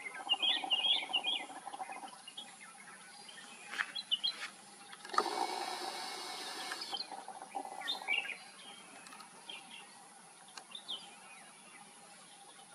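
Red-whiskered bulbul calling: a burst of short, bright chirping phrases at the start, then a few scattered chirps later. Near the middle a louder, steady buzzing sound lasts almost two seconds.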